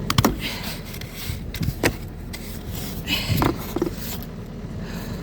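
Irregular crunching and scraping in deep snow, with a few sharp clicks near the start and about two seconds in, and short scuffs just past three seconds.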